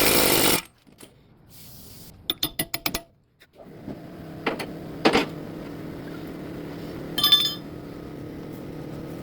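A loud noisy burst cuts off about half a second in, followed by a quick run of light metallic clinks. After a short pause a car's engine runs with a steady low hum, with a sharp metallic click or two over it.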